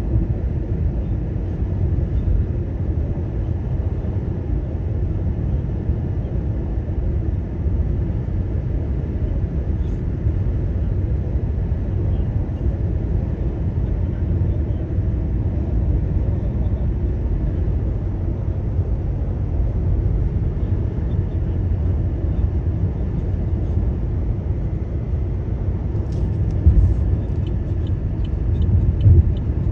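A car driving at steady speed: a constant low rumble of engine and tyres on the road, with two short louder bumps near the end.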